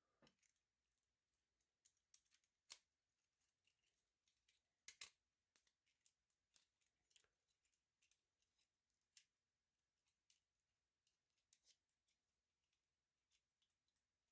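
Faint, irregular clicks and taps of a vintage G1 Transformers Sunstreaker toy's parts being handled and snapped into place while it is transformed from car to robot.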